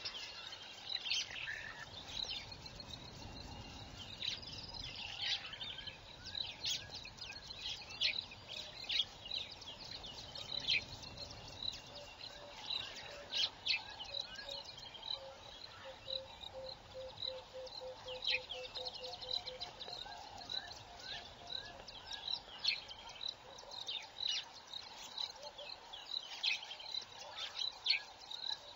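Birds calling in the bush: a mix of short high chirps, a high pip repeated about twice a second through the second half, and a low series of hoots that speeds up in the middle.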